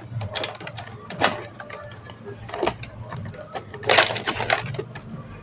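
Scattered clicks and knocks of parts and tools being handled during work on a washing machine, with a louder burst of clatter about four seconds in, over a low steady hum.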